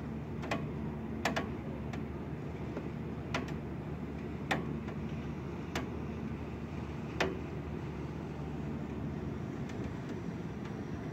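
Wind blowing in a steady low rumble, with a handful of sharp, single taps at irregular moments over the first seven seconds or so.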